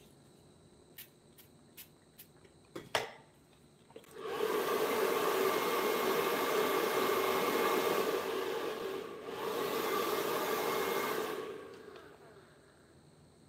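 A few light clicks and a sharper tap, then a small electric blower motor runs steadily for about seven seconds with a short dip near the middle before winding down.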